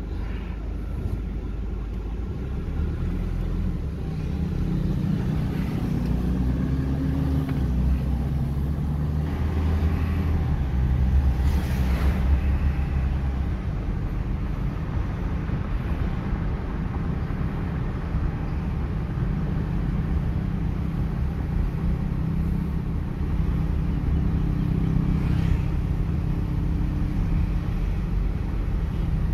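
Engine and road noise heard inside a moving car's cabin: a steady low rumble, with the engine note rising and falling a few seconds in.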